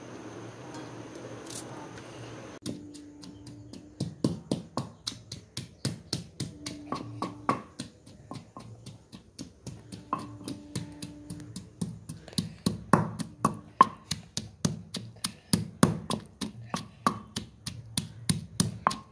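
Wooden pestle pounding ginger, garlic and green chillies in a small black stone mortar (kundi): a steady run of thuds, about three a second, starting about three seconds in.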